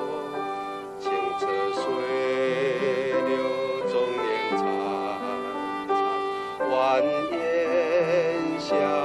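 A violin plays a slow school-song melody, one note at a time, with vibrato on the long held notes.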